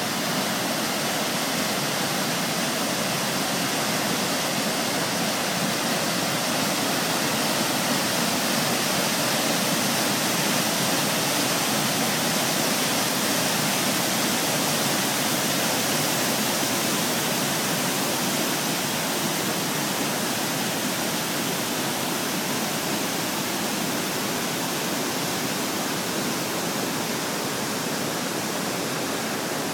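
Steady rushing of a large waterfall in flood, a heavy volume of muddy water pouring over a rock ledge into a gorge; it grows a little fainter near the end.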